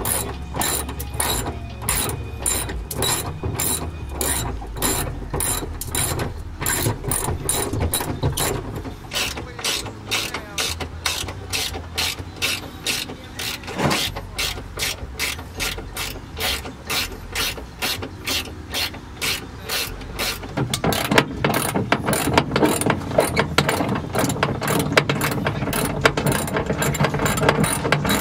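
Hand socket ratchet clicking as it backs out the bolts holding the rear seatbelt and seat-back latch loops: an even run of several sharp clicks a second, louder and busier about two-thirds of the way in.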